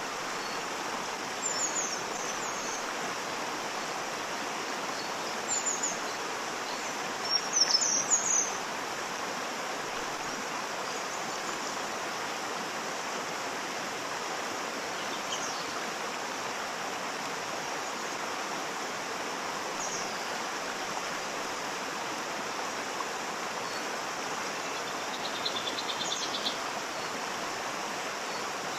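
Waterfall: a steady rush of falling water. Birds chirp briefly over it now and then, loudest about seven to eight seconds in, with a short trill near the end.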